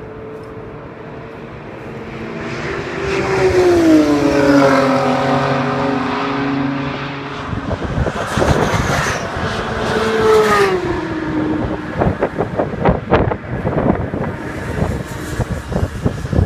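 Race car engines running at speed past the track, loud, their pitch dropping as they go by, with a second car following about halfway through. Between and after the passes come rapid sharp crackles and pops.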